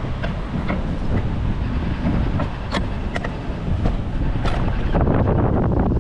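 Wind rumbling on the microphone during a bicycle ride, with scattered sharp clicks and rattles, growing louder and rougher near the end.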